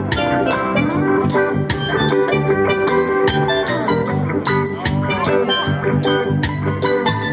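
Instrumental reggae cover played live by a band: a sustained melody over a steady beat, with regular drum and cymbal strikes.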